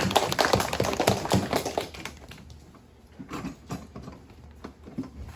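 A small group of children clapping by hand, fast and dense at first, thinning out to scattered claps after about two seconds.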